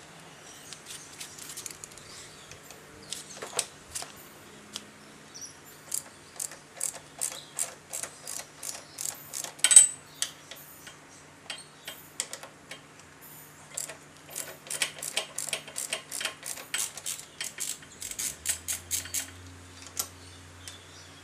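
Irregular sharp clicks and clinks of metal hand tools and parts being handled, coming in runs with one louder knock about ten seconds in, over a faint steady hum.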